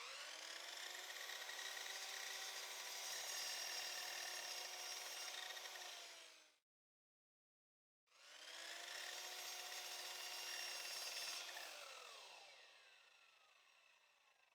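Miter saw crosscutting short pieces of reclaimed wood, heard faintly as two runs of a steady motor whine with cutting noise, each about five or six seconds long. The second run winds down at the end in a falling pitch.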